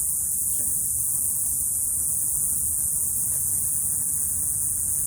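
Cicadas buzzing continuously: a steady, high-pitched drone that is the loudest sound, over a low rumble.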